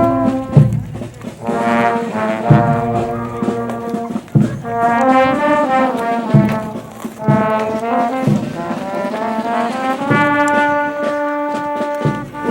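Brass band music: brass instruments holding slow chords, with a low drum-like beat about every two seconds.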